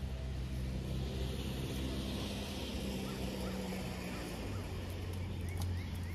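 An engine running steadily, its hum dropping lower about four and a half seconds in. Faint short bird chirps come near the end.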